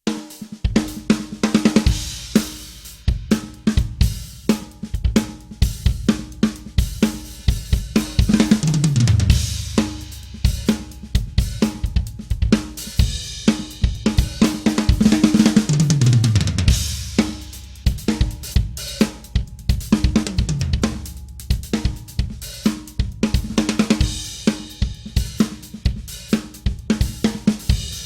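Drum kit playing a groove that features a Sonor Designer 14x5" maple-shell snare drum, with hi-hat, cymbals and bass drum. There are two fills falling in pitch, about eight and fifteen seconds in.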